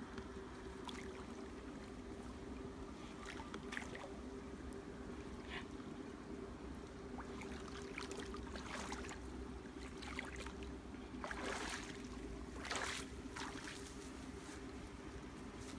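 A person wading through a shallow stream: water sloshing and splashing around the legs in irregular bursts, loudest a few seconds before the end as he climbs out.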